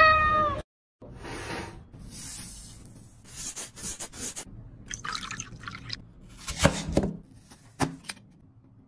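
A cat meows once, briefly and falling in pitch. After a short gap come close-up food-prep sounds: the hiss of a powdered apple being rubbed and washed, then a few sharp knife cuts through the apple on a cutting board, the loudest about seven seconds in.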